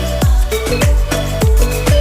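Upbeat electronic background music with a steady kick-drum beat and short melodic notes.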